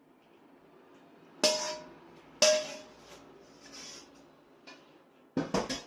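Metal utensil clanking against a wok while food is dished up: two sharp clanks about a second apart, each with a brief metallic ring, then a quick cluster of knocks near the end.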